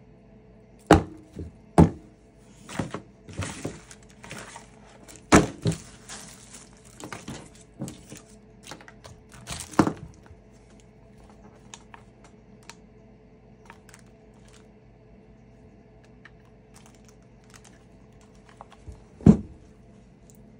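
Knocks and clacks from a NOCO GB40 jump starter and its plastic battery clamps as they are handled and set down on a cloth-covered table, with soft rustling between them. Several sharp knocks come in the first ten seconds, then a last single loud knock near the end.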